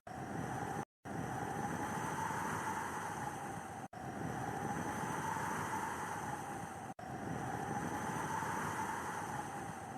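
Steady snowstorm wind noise with a hollow, slowly swelling whistle under it, broken three times by brief cuts to complete silence.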